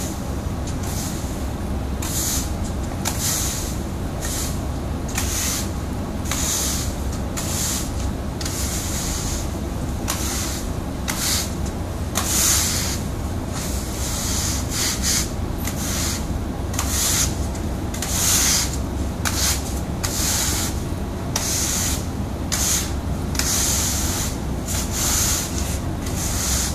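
Push broom bristles sweeping loose oil-absorbent granules back and forth across a concrete floor, soaking up used motor oil: scratchy, hissing strokes about once or twice a second, over a steady low hum.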